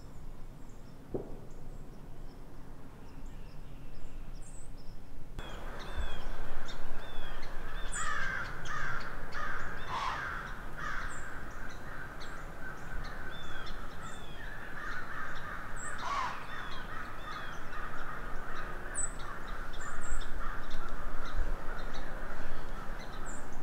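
Crows cawing again and again in the woods, with small birds chirping faintly in between. The first few seconds are quieter, holding only faint chirps, before the cawing starts about five seconds in.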